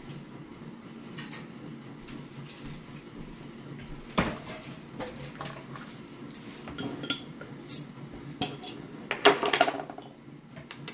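Metal utensils clinking and clattering while a bottle opener is fetched and worked on the crown cap of a glass beer bottle. Scattered sharp clicks, with the loudest cluster of clinks near the end.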